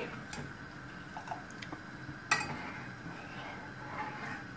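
Metal spoon stirring milk and vermicelli in an aluminium saucepan, the liquid swishing, with small scrapes and one sharp clink of the spoon against the pan a little past halfway.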